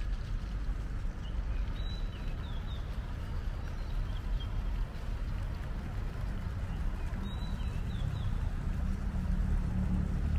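Steady low rumble of city traffic, with a bird calling twice: a short run of high chirps about two seconds in and again about seven seconds in.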